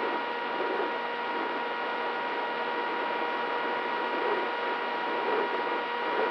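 Steady whine of a flying wing's DYS Fire 2206 2300KV brushless motor spinning a Gemfan 6x4 propeller, mixed with a hiss of wind rush, heard through the camera mounted on the plane in flight.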